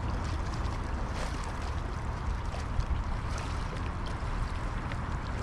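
Steady outdoor ambience over canal water, mostly a low rumble of wind on the microphone with a faint wash of water, and a few light ticks.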